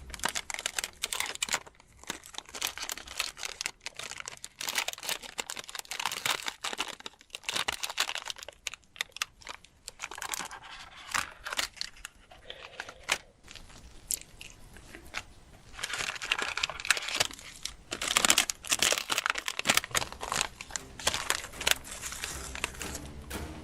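Packaging being torn open and crinkled: a dense, irregular crackling that grows louder from about two-thirds of the way in.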